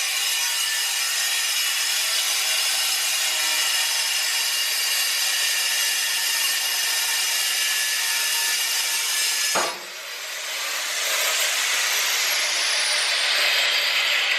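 Angle grinder with a cut-off wheel cutting through a steel threaded rod that holds a cast-iron boiler's sections together, a loud, steady, high-pitched cutting noise. It drops out briefly a little before ten seconds in, then builds back up.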